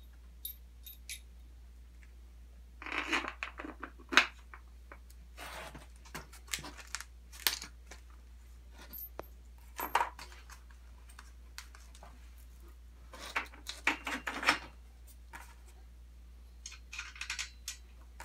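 Small metal hardware, bolts and nuts, clinking and rattling as it is handled, in several separate bursts of clicks with some rustling between.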